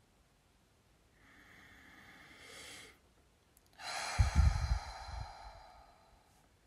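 A woman's deep breath close to the microphone: a soft inhale of about two seconds, then a louder exhale starting about four seconds in and fading out.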